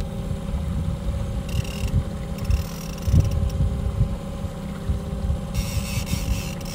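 Outboard motor running steadily at trolling speed, a constant drone, with wind gusting against the microphone.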